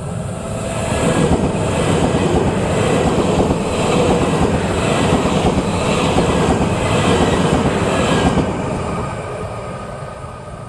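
E3-series Yamagata Shinkansen 'Tsubasa' trainset passing close by: the run of wheels on rail and air rush swells within the first second and stays loud, with a louder surge about once a second as the cars go by. It dies away over the last couple of seconds.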